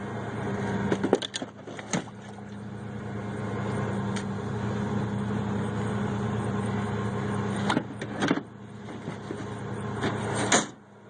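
A vehicle engine idling with a steady low hum, with several sharp clunks and knocks over it. The loudest knock comes near the end.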